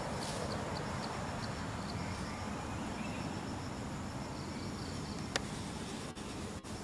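Outdoor ambience: a steady hiss with an insect chirping in short high ticks, about three or four a second, that fade out about a second and a half in; a single sharp click about five seconds in.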